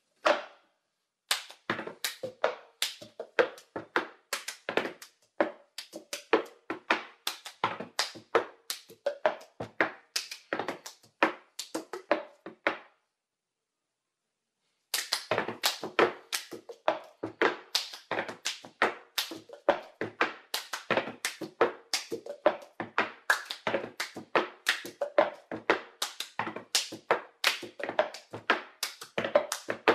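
Two empty plastic cups knocked, tapped and set down on a tabletop together with hand taps, played as a quick rhythm of several strikes a second. A single knock comes first, then the rhythm runs, stops for about two seconds in the middle and resumes.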